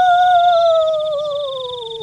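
A long, slightly wavering howl that slides slowly down in pitch, over a steady high, rapidly pulsing whine.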